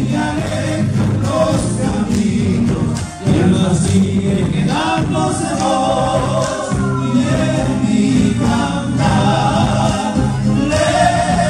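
Live Argentine folk band playing on stage: strummed acoustic guitars and bass under several voices singing together, amplified through the stage sound system.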